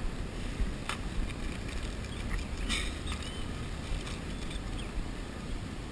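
Wind rumbling on the microphone in strong wind, with a sharp click about a second in and a brief rustle near three seconds.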